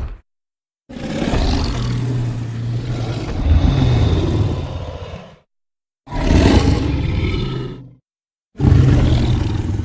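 Designed large theropod dinosaur roars, made from layered lion, tiger, elephant and crocodile sounds. There are three separate deep growling roars: a long one of about four and a half seconds, a shorter one of about two seconds, and a third starting near the end. Each is cut off by a brief silence.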